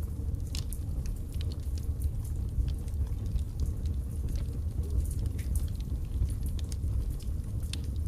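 Birch logs burning in a fireplace: frequent sharp crackles and small pops at irregular moments over a steady low rumble of the fire.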